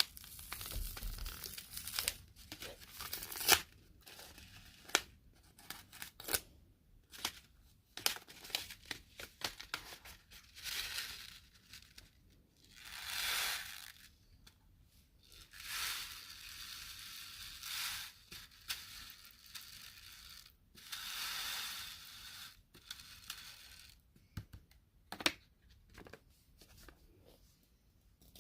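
Paper seed packets being handled: crinkling and tearing paper with sticky peeling, made up of many sharp crackles and several longer tearing swishes of a second or two.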